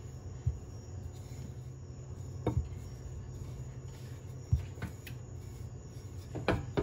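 Wooden rolling pin rolling out shortcrust pastry dough on a floured countertop, with a few short dull knocks as the pin presses and shifts, over a steady low hum.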